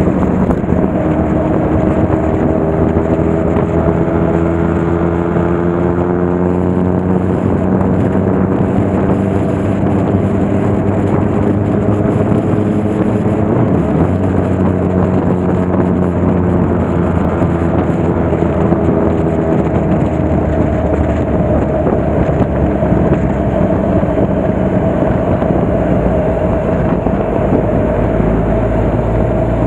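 Motorcycle engine running at steady road speed, heard from the bike, over a steady rushing noise. The engine pitch rises slightly in the first few seconds, then holds.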